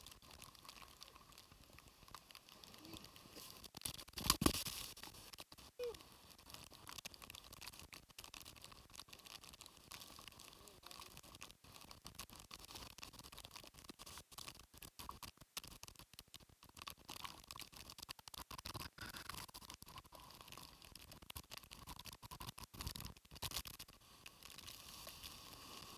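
Typhoon wind and rain hitting a phone's microphone, heard as a faint, crackling patter that keeps cutting in and out, with a stronger gust about four seconds in.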